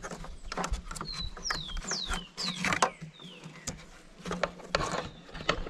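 Sharp clicks and rattles of hands working the wiring connector off the back of a Triumph Tiger 800's headlight bulb, with a bird calling in a run of short falling whistles about one to three seconds in.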